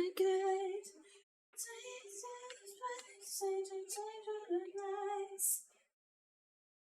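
A voice singing softly: a short sung phrase of held notes, stopping a little before six seconds in.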